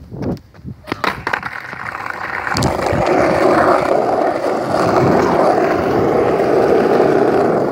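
Wheels rolling over asphalt, a rough steady rolling noise that builds over the first few seconds and then holds loud as speed picks up. A few sharp clicks come just before it.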